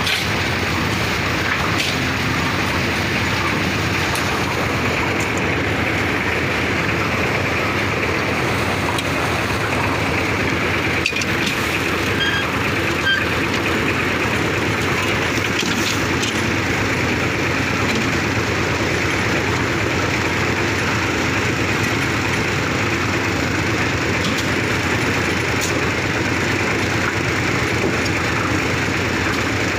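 An engine-driven machine running steadily at a constant speed, with a few faint clicks over it.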